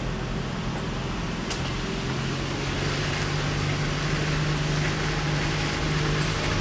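Nissan Frontier pickup's engine running at a steady low pace as the truck crawls along a muddy trail, with a steady hum and road noise; the engine note grows a little louder about halfway through.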